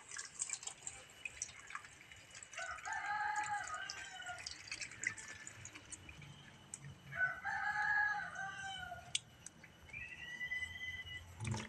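A rooster crowing twice, each crow about a second and a half long, with a higher call near the end. Under it, water splashes and drips as tomatoes are rubbed clean by hand in a plastic bowl.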